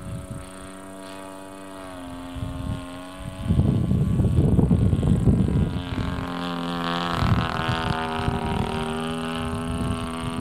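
Small engine of a radio-controlled model airplane buzzing in flight overhead, its pitch dropping about two seconds in and rising again about six seconds in. Wind buffets the microphone from about three and a half to six seconds in, the loudest part.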